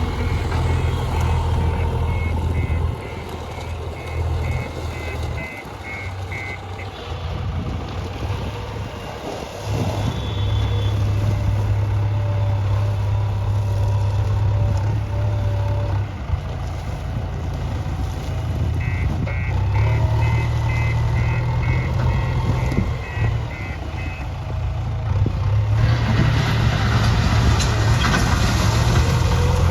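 JCB backhoe loader's diesel engine running under varying load, with its reversing alarm beeping in a steady series for the first few seconds and again for several seconds about two-thirds through. The machine grows louder near the end.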